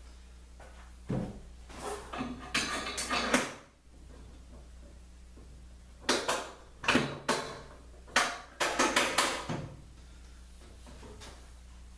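Two bursts of knocking and rattling from clamps and the extension top being handled and fitted on the table saw: the first about a second in, the second around six seconds in. A steady low hum runs underneath.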